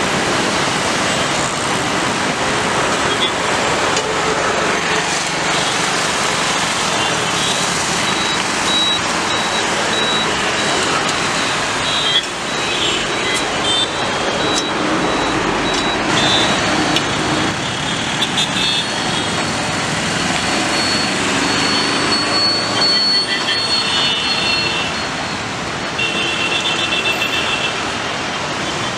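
Steady roar of road traffic mixed with jet airliner engines, with short high tones now and then.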